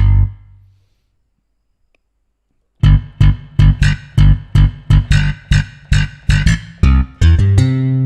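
Sampled electric bass preset on a Korg Triton software synthesizer, played as a run of short, sharply attacked notes, about three a second. It starts after a gap of about two seconds, once the previous phrase has died away, and includes one longer held note near the end.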